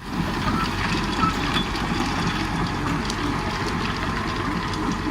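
Liebherr R914 HDSL crawler excavator's diesel engine running steadily, with a constant low rumble.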